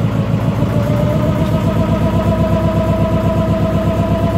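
Boat engine running steadily with an even throb, and a high whine that rises slightly about a second in and then holds level.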